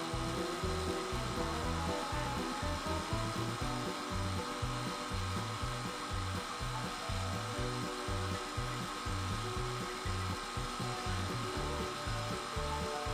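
Wood lathe spinning an epoxy pen blank as it is hand-sanded with micromesh pads, a steady rubbing, under background music with a steady beat.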